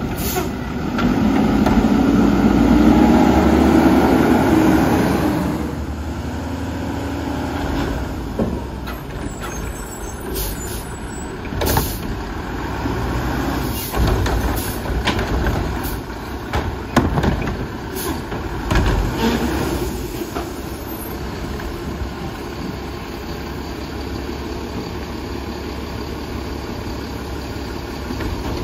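Mack LEU garbage truck with a McNeilus Atlantic front-loader body: the engine runs up loudly for about five seconds, then settles while the front arm and carry can dump a cart. This brings a run of sharp clangs and knocks over roughly ten seconds, and the truck then idles steadily.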